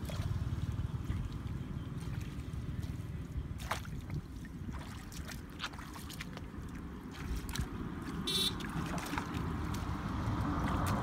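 Wind rumbling on the microphone over shallow muddy water trickling and gurgling, with a few brief sharp splashes scattered through.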